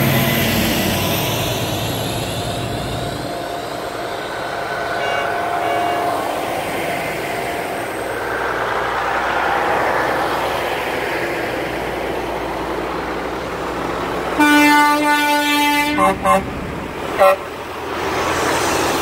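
Heavy diesel trucks passing close by one after another, with engine and tyre noise. Near the end a truck horn blows one long blast of about a second and a half, then three short toots.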